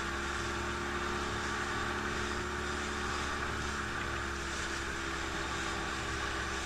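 Motorboat engine running at a steady speed, with a steady rush of water around the hull.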